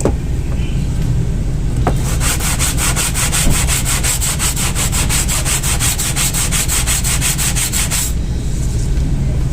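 Brake pad being sanded flat on sandpaper: fast, even scraping strokes, about seven a second, starting about two seconds in and stopping near the end. The sanding levels the pad's contact face to cure brake squeal. A steady low hum runs underneath.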